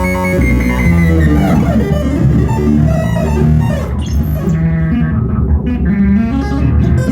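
Electronic music: synthesizer and bass notes, with sweeping glides in pitch in the upper parts.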